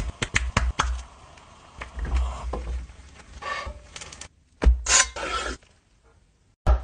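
Food prep sounds at a frying pan: a quick string of taps, clicks and short scrapes as an omelette wrap is handled and folded in the pan, louder about five seconds in, then about a second of silence at an edit.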